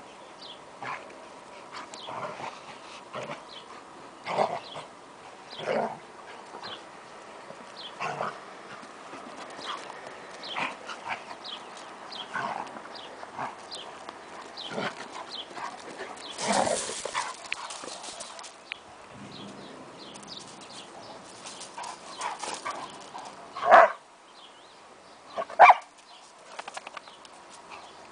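Two dogs play-fighting, a German Shepherd and a brown-and-white dog, with short dog vocalisations scattered throughout. Two much louder short calls come about two seconds apart near the end.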